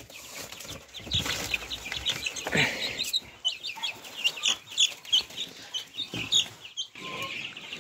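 Chicks peeping: many short, high calls in quick succession, thickest in the second half.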